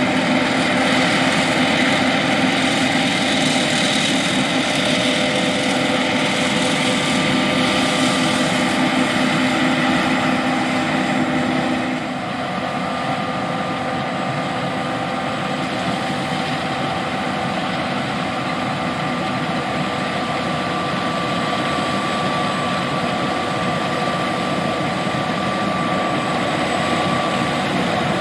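John Deere S780 combine harvester running while harvesting soybeans: a steady machine drone with several constant whining tones over it, dropping a little in level about twelve seconds in.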